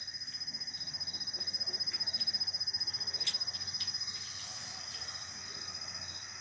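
Crickets chirping in a steady, high-pitched pulsing trill that grows a little louder in the middle.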